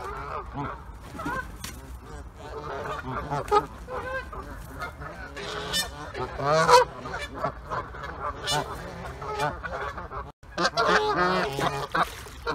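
Several geese honking, many calls overlapping one another.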